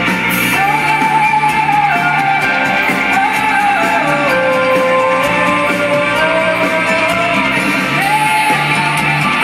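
Live rock band with a female lead voice singing sustained, held notes over guitar and drums, heard in a large arena with a loud, reverberant sound.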